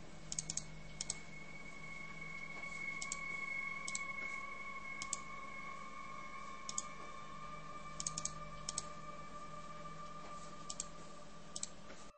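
Computer mouse clicking while cards are moved in a Spider Solitaire game: short, sharp single and double clicks at irregular intervals, about fifteen in all, over a faint steady hum and a thin high tone.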